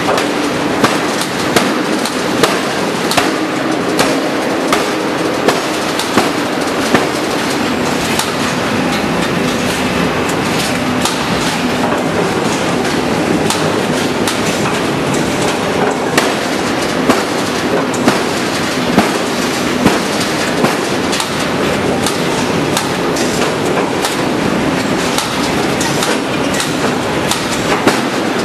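Hydraulic open-die forging hammer striking a red-hot steel axle forging in rapid repeated blows, under a second apart, over a steady loud din.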